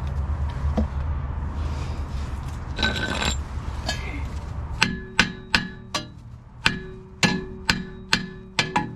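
A steady low hum, then from about five seconds in a hammer striking metal in regular blows, about two a second, each ringing briefly.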